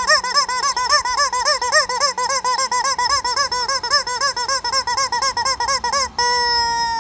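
Rubber chicken toy squeaked over and over in a fast run of short squeaks, each rising and falling in pitch, about five a second; near the end it gives one long steady squawk.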